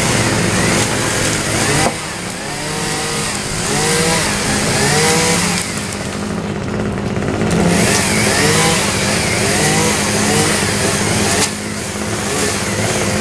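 Engines running: a steady low drone under a smaller engine revving up and down in short blips, about one a second.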